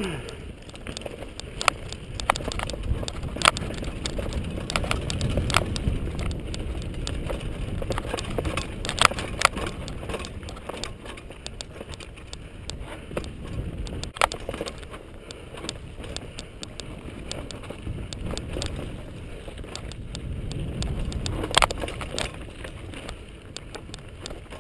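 Mountain bike riding fast down a dirt singletrack, with a steady low rumble of tyres on dirt and wind on the camera microphone. Frequent sharp clacks and rattles come from the bike jolting over bumps, the loudest about 3½ s, 9 s, 14 s and 22 s in.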